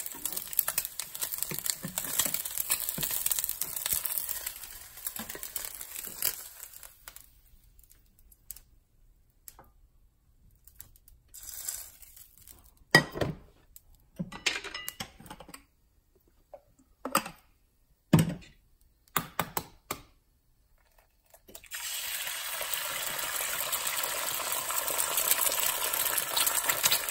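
Egg frying in a nonstick pan: a steady sizzle that dies away about seven seconds in. A quiet stretch follows with a few sharp knocks and clatter of pan and utensils. About three-quarters of the way through, a new egg starts sizzling and keeps on.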